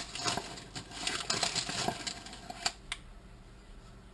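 Paper bag rustling and crinkling as a measuring cup is scooped into the flour inside it, with a few sharp clicks; it stops about three seconds in.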